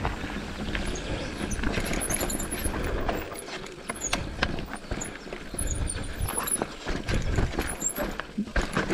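Mountain bike rolling over a rocky, rooty dirt trail: a low rumble from the tyres with frequent knocks and rattles from the bike as it goes over roots and stones.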